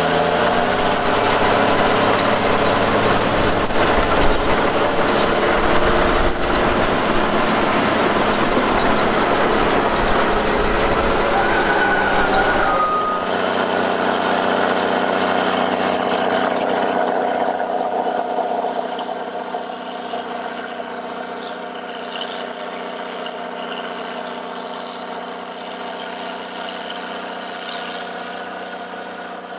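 Heavy diesel earthmoving machinery running, loud for the first half; about thirteen seconds in the sound changes abruptly to a quieter, steadier engine hum with less low rumble. A brief high beep-like tone sounds just before the change.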